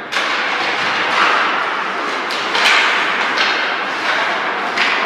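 Ice hockey play in an indoor rink: skates scraping the ice and sticks and puck knocking, with a few sharp knocks standing out a little past the middle.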